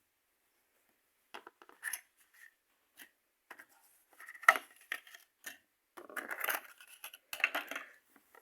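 Toy packaging being handled: a series of small plastic and cardboard clicks and rustles, with one sharp click about halfway through and two longer scraping rustles near the end.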